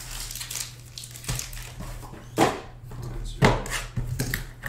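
Hands handling cardboard trading-card boxes on a table: about five sharp knocks and thumps, the loudest two about two and a half and three and a half seconds in, over a steady low hum.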